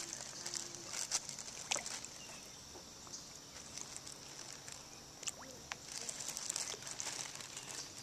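A few small splashes and clicks as turtles surface and snap at floating bread in a pond, over a steady high hiss.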